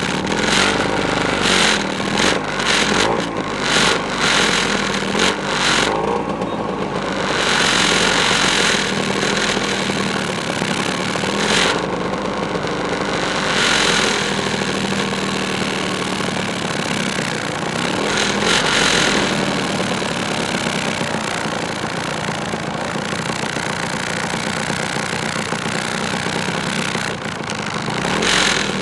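Several two-stroke motorcycles riding slowly as a group, their engines running and revving up and down, with repeated bursts of hiss over the engine sound.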